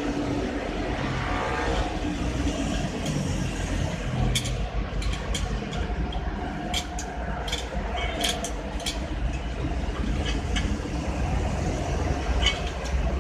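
Steady low machine hum with many short, sharp metallic clicks and knocks scattered over it, most thickly in the middle.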